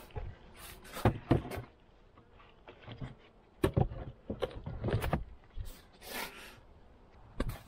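Metal-clad telescoping outer cover being set down and fitted onto a wooden beehive: a series of sharp knocks and scrapes of sheet metal on wood.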